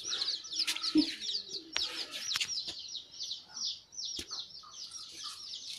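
Small birds chirping rapidly and without a break, with a few sharp clicks in between.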